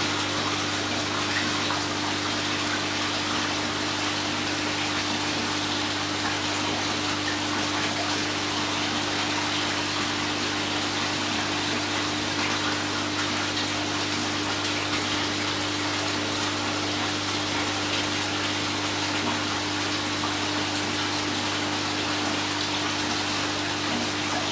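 Steady rush of running water from koi tank circulation, with a constant low pump hum underneath; nothing changes throughout.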